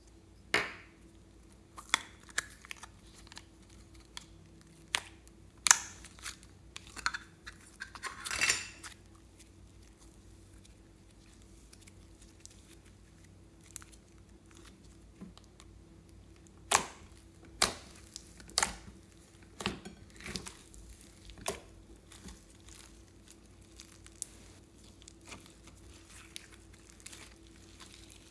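Soft slime and clay squeezed, pulled and stretched by hand, giving scattered sharp pops and crackles. The pops cluster in the first ten seconds, go quiet for several seconds, then come again.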